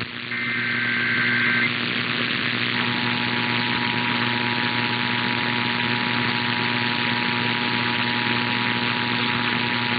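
Emergency Alert System tones heard off the air. First comes a short, screeching burst of SAME header data, about a second and a half long. From about three seconds in, the steady two-tone EAS attention signal sounds, over constant hum and hiss.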